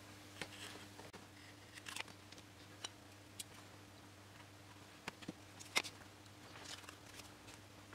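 Faint, scattered clicks and taps of small balsa wood parts being handled, fitted together and set down on a cutting mat, the sharpest a little before six seconds in, over a low steady hum.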